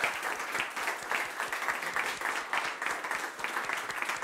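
Audience applauding, many hands clapping in a steady, even patter.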